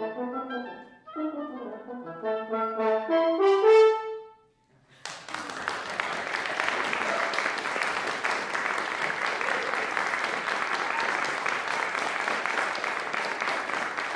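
French horn and clarinet duo playing the closing phrase, the notes climbing to a loud final note that stops about four and a half seconds in. After a brief silence the audience applauds steadily.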